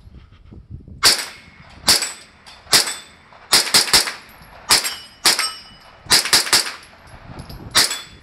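Kalashnikov USA KP9 9mm pistol firing about a dozen semi-automatic shots at an uneven pace, some in quick pairs and triples.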